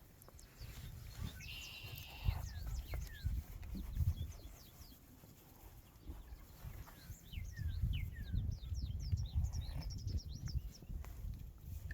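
Sheep bleating, with many small birds chirping in quick falling notes that are thickest near the end. A low fluttering rumble runs underneath.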